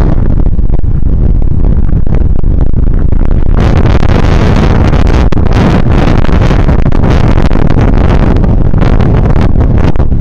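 Heavy wind buffeting on the microphone of a camera riding on handlebars along a rough lane, a constant loud rumble broken by frequent small knocks and rattles from bumps in the surface.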